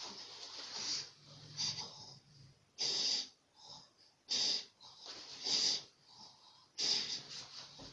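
Snoring: wheezy, hissing breaths coming about every second and a half, with a low snoring rumble between about one and two and a half seconds in.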